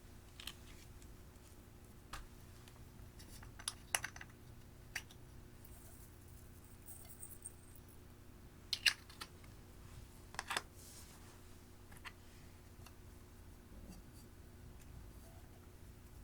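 Clear slime being worked by hand, giving scattered sticky clicks and pops, about one every second or two, with the loudest pair near the middle.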